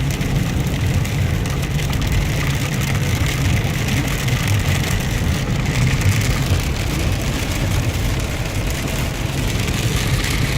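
Car cabin sound while driving in heavy rain: steady engine and road rumble with rain hitting the roof and windshield.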